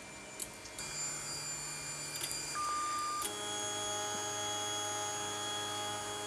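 Anycubic Mega Pro 3D printer's stepper motors whining as the machine homes and runs its Z-axis leveling before a laser engraving starts. A small click near the start, then steady whining tones that change pitch about a second in and again about three seconds in as the moves change.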